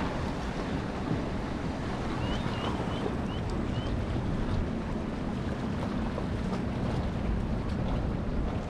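Wind on the microphone and water lapping against jetty rocks, with the low drone of a passing motorboat. About two seconds in, five faint short chirps come in quick succession.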